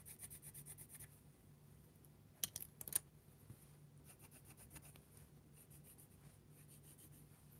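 Faint scratching of a Faber-Castell coloured pencil drawing straight lines on paper, with two short, sharper clicks about two and a half and three seconds in.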